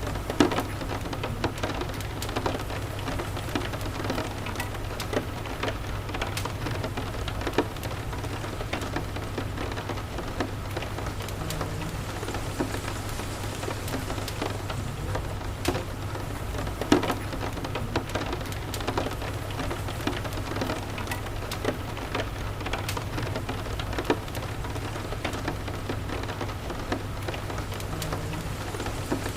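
Steady rain falling, with many scattered sharp clicks and pops, two of them much louder than the rest.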